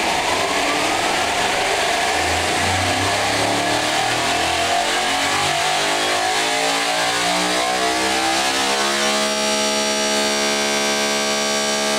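Sorceress big-block V8 spun on a Spintron valvetrain test rig, its exhaust valve springs running with reduced spring pressure. The pitch climbs steadily as the RPM is swept up, then holds steady at top speed for the last few seconds.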